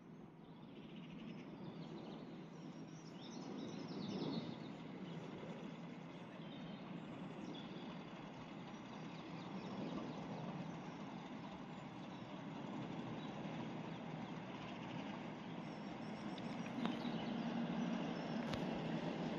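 Diesel locomotive approaching, its engine a low rumble that grows steadily louder. A few bird chirps come about four seconds in.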